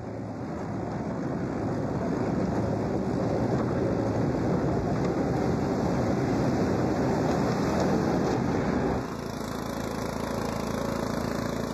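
An Aebi utility vehicle drives over a rough farm track, its engine and tyre noise growing louder over several seconds. About nine seconds in this gives way to the steadier engine hum of an Aebi CC36 walk-behind machine blowing snow.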